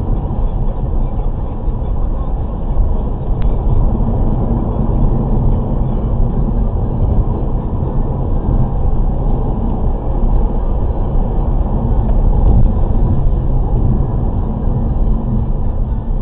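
Steady road noise inside a car cruising at about 95 km/h: a low rumble of tyres and engine heard through the cabin, with one faint tick a few seconds in.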